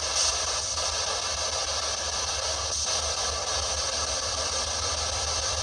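Steady radio static hiss from a spirit box sweeping through radio stations.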